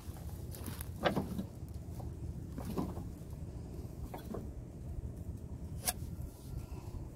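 A few separate knocks and clicks, about four of them spread out, over a steady low rumble.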